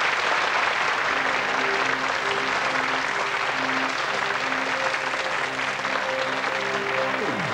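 Studio audience applauding while the intro of a synth-pop song starts under it, short keyboard notes repeating at a steady pace. Near the end a falling sweep leads into the full band.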